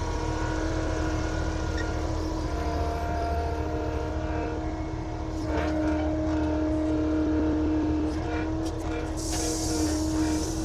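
Bulldozer engine running steadily with a constant hum, and a few short clanks partway through. A hiss comes in near the end.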